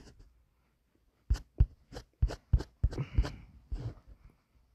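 A quick, irregular run of about ten sharp taps and knocks of fingers on a smartphone while scrolling its touchscreen, picked up close by the phone's own microphone.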